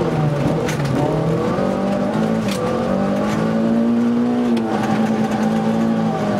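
Opel Corsa rally car's engine heard from inside the cabin, driven hard with its pitch climbing and then dropping at each gear change, the longest pull ending about four and a half seconds in. A few sharp clacks of gravel strike the underside of the car.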